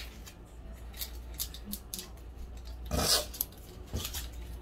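Dry, papery onion skin crackling and rustling as it is peeled off by hand, in short scratchy bursts, loudest about three seconds in.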